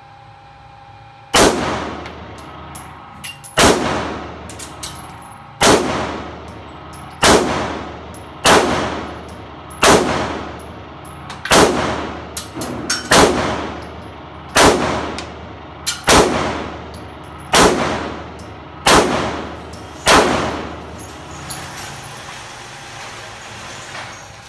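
Handgun fired thirteen times in a slow, steady string, about one shot every second and a half. Each sharp crack rings off the walls of the indoor range lane. The shooting stops about twenty seconds in.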